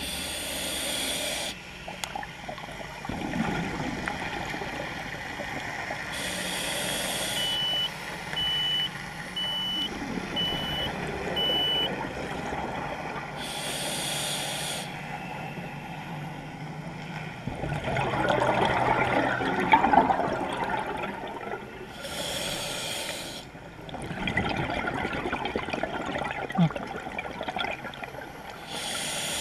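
Scuba diver breathing through a regulator: a short hissing inhale every seven seconds or so, each followed by a long bubbling exhale. Between the first two breaths comes a run of short, evenly spaced high beeps.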